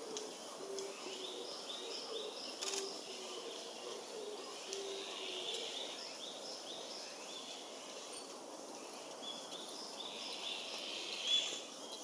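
Woodland birds calling: a low short note repeated about every half second through the first half, over higher chirps made of quick falling notes, with a louder chirp near the end. A single sharp click comes a few seconds in.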